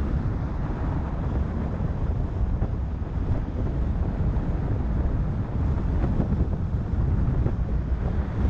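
Wind buffeting the microphone of a camera mounted outside a moving 4WD, over a steady low rumble of road and tyre noise.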